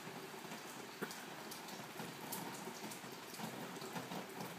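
Rain falling steadily: an even hiss with many small drop ticks, and one sharper tap about a second in.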